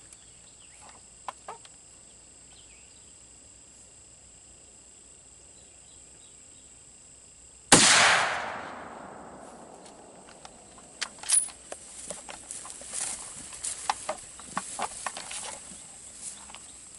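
A single .30-06 Savage 110 bolt-action rifle shot about eight seconds in, its report trailing off for a couple of seconds, followed by a series of clicks and knocks from handling. Steady insect trilling runs underneath.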